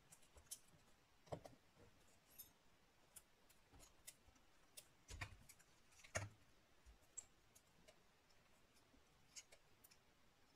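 Faint, scattered clicks and light taps of small laptop parts being handled and pressed into place, with a few slightly louder knocks about one, five and six seconds in.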